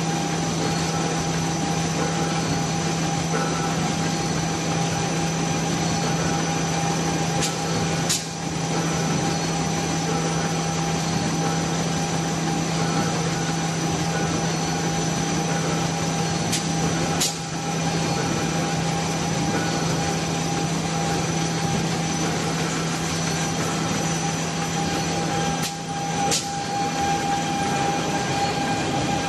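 Automatic facial tissue packing machinery running steadily with a constant hum. A pair of sharp clicks comes about every nine seconds, three times in all.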